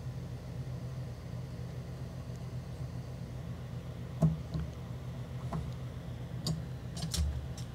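Small metal clicks and knocks of a screwdriver working screws back into a NEMA 14-50 outlet's mounting plate. There are several sharp clicks from about halfway on, the loudest just after the halfway point, over a steady low hum.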